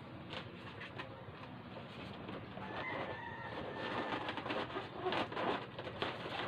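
Birds calling in the background while latex balloons squeak and rub as they are pressed together by hand.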